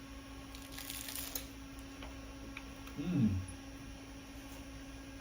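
Mukbang eating sounds: a short crackly crunch about a second in, then a brief falling voiced "mm" around three seconds, over a steady low electrical hum.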